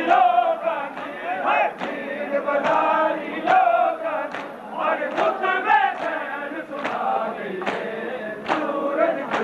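A large crowd of men chanting a Punjabi noha (mourning lament) together, with a sharp slap a little more than once a second. The slaps are chest-beating (matam) in time with the chant.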